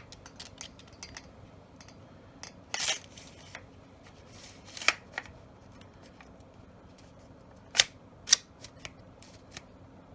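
Hands working the parts of a Beretta A400 semi-automatic shotgun: light clicks and short sliding scrapes, with two loud sharp metallic snaps about eight seconds in.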